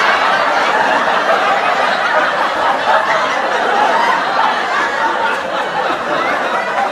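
Sitcom studio audience laughing: many voices laughing together in a steady, dense wash of laughter.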